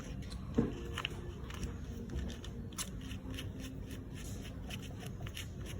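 Scattered light clicks and rustling from handling, with one sharper knock about half a second in, over a faint steady low hum.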